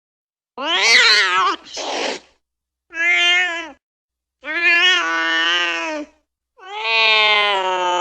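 A cat meowing in a series of drawn-out calls with short silent gaps between them. The first call wavers in pitch and the last is held long and steady.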